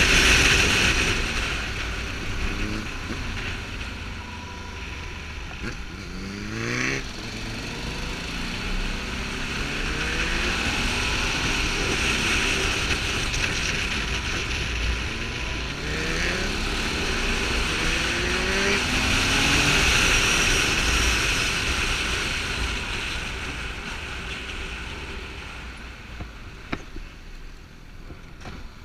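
Ducati Multistrada 620's L-twin engine pulling the bike along under steady wind rush, its pitch rising several times as it accelerates out of bends. Near the end it eases off and gets quieter as the bike slows.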